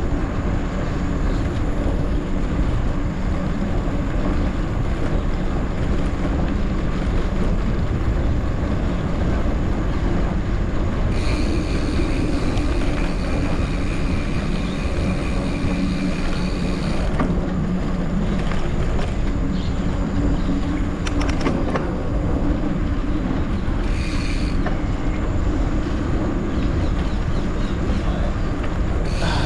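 Riding noise on an off-road trail: steady wind rush on the microphone and tyre rumble on dirt. A thin, steady high ringing tone comes in for several seconds about a third of the way through and again briefly later.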